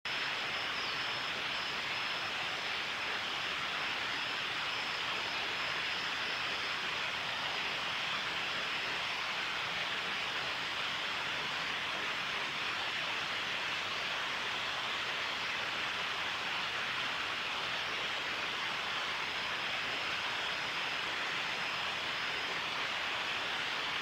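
Steady rush of flowing water, even and unbroken, with a faint high thin whine that fades in and out.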